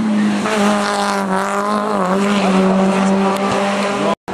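Rally car engine running hard at high revs, a sustained pitched drone that drops slightly in pitch about two seconds in.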